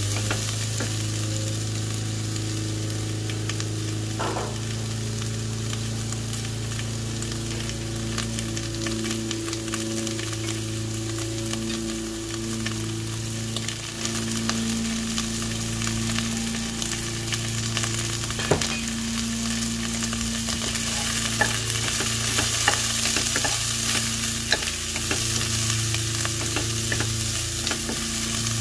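Sliced onions sizzling in hot olive oil in a pot while a wooden spoon stirs them, scraping and tapping against the pot now and then. The sizzle grows a little stronger in the second half, over a steady low hum.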